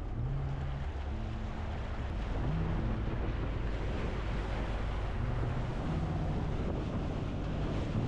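Motorboat under way: a low engine hum under steady rushing water along the hull, with wind buffeting the microphone.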